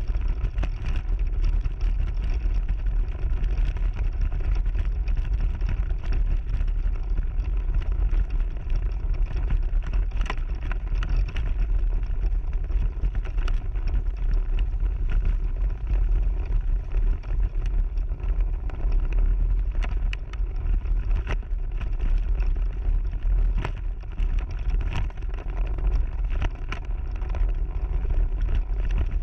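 AC Mayan electric off-road mobility scooter riding over a rough gravel track, picked up by a camera mounted on the scooter: a steady low rumble with scattered knocks and rattles over the bumps.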